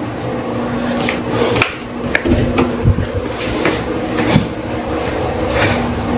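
Several sharp knocks and clatters, irregularly spaced about half a second to a second apart, over a steady low hum.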